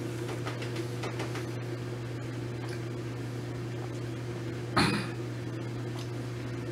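A steady low hum with a few faint clicks, and one short, louder knock about five seconds in.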